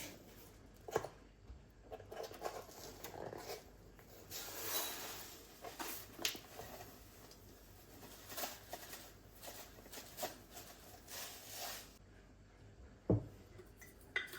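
Kitchen handling sounds: light knocks, rustling and scraping as utensils and ingredients are handled, with a sharp knock about a second in and another near the end.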